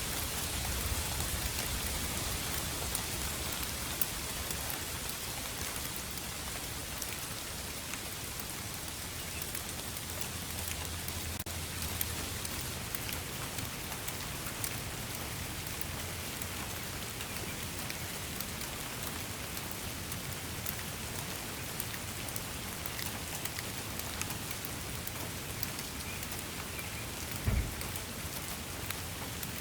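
Steady rain falling: an even hiss dotted with many small drop ticks. One brief low thump near the end.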